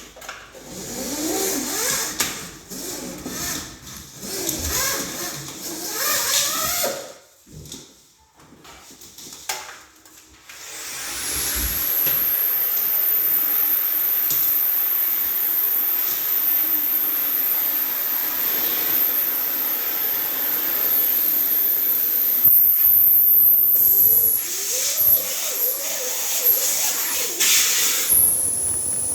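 Central vacuum system with a retractable hose: first the hose rubbing and squeaking as it is handled, then the suction comes on about a third of the way in and runs steadily as a loud airflow hiss with a high whistle. Near the end there is more rattling and rubbing over the suction.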